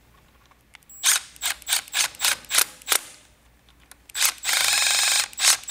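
Red cordless power tool screwing fittings into a brass pressure-washer pump head. It runs in about eight short trigger pulses, then one steadier run of about a second, then two more short pulses.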